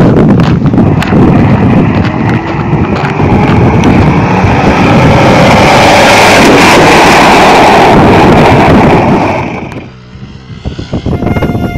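Very loud rushing wind and vehicle running noise from a moving Mahindra Bolero Camper pickup, filling the microphone. About ten seconds in it drops away sharply, and a few music tones come in near the end.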